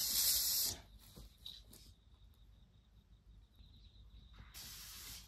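Aerosol hornet spray can hissing in one loud burst of under a second, then hissing again, more softly, from about four and a half seconds in.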